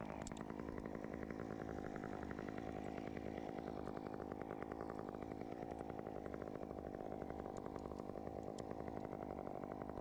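A small engine running steadily with a fast, even firing rhythm, neither revving up nor down.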